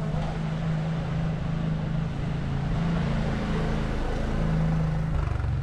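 An engine running steadily with a low hum, changing slightly about five seconds in, over street noise.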